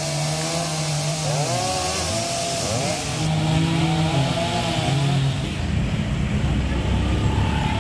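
Chainsaw cutting through a fallen tree, its engine revving up and down as it bites into the wood.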